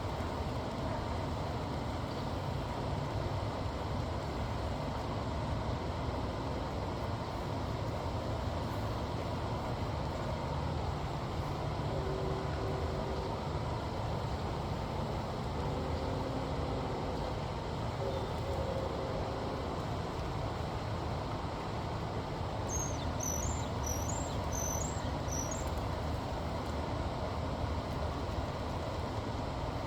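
Steady low outdoor rumble with no clear events. Faint humming tones come and go in the middle, and a small songbird gives a quick run of five or six high chirps about three-quarters of the way through.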